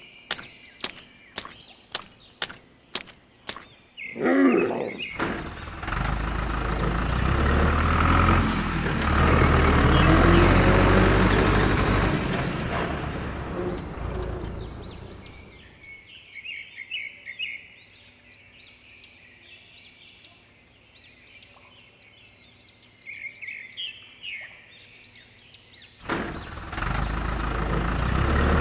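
Sharp clicks about twice a second, then a loud engine-like rumble with a low throb that fades after about ten seconds into a quieter stretch of birds chirping. The rumble starts again near the end.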